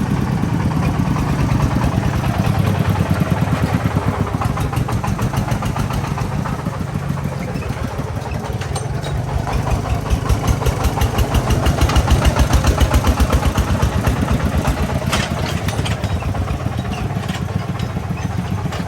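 Công nông farm truck's single-cylinder diesel engine chugging with a fast, even thumping pulse, growing louder about halfway through and then easing back.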